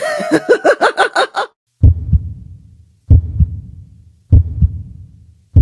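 A voice laughing for about a second and a half, then a heartbeat sound effect: four low double thumps about one and a quarter seconds apart, each fading out slowly.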